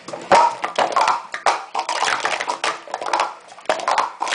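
Hard plastic sport-stacking cups clattering as they are rapidly upstacked and downstacked in a speed-stacking cycle: a dense, fast run of clacks as cups knock against each other and the mat.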